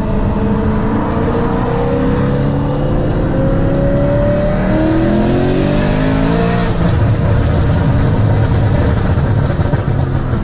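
BMW E92 M3's S65 V8, fitted with a straight pipe and back box, heard from inside the cabin under acceleration. The engine note climbs steadily for about six seconds, then falls away and settles.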